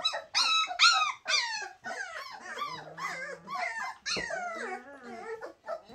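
A litter of Bernese Mountain Dog puppies whining and crying together, many high-pitched cries overlapping, loudest in the first second or so, with another sharp cry about four seconds in.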